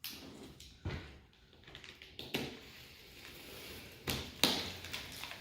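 Handling noise from a large cardboard chair shipping box: about five knocks and thumps, two of them close together near the end, with scraping and rustling between.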